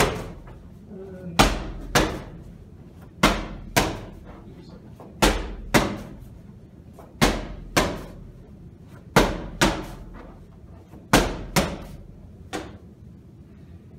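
Medicine ball slammed onto a rubber gym floor again and again, about one slam every two seconds, each loud thud followed half a second later by a second hit. The slams stop about a second before the end.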